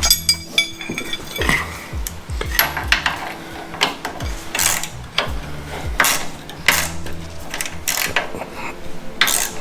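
Hand tools and steel suspension parts clinking and knocking together in irregular sharp clicks while a coilover spring is being fitted and bolted up.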